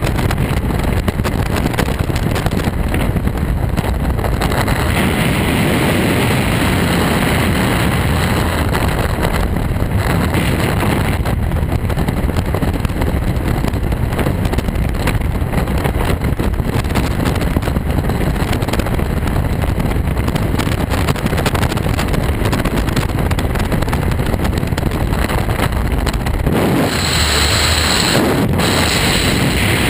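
Freefall wind rushing over and buffeting the camera microphone, a loud steady rushing noise; its character changes about 27 seconds in.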